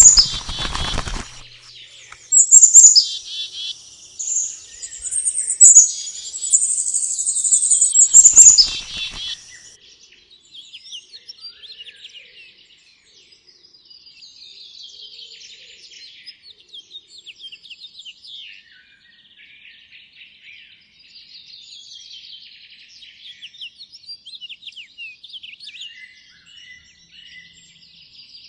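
Small songbirds at a feeder chirping loudly and rapidly for the first ten seconds, with a brief rustle near the start and another about eight seconds in. After that, fainter, busy chirping and twittering goes on.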